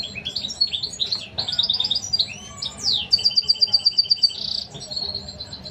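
European goldfinch nestlings begging in the nest with a dense stream of high chirps. About three seconds in comes a fast run of loud, evenly repeated bird notes lasting just over a second, ending in a short buzzy note.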